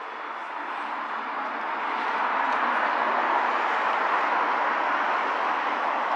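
Street vehicle noise, growing louder over the first two seconds and then holding steady.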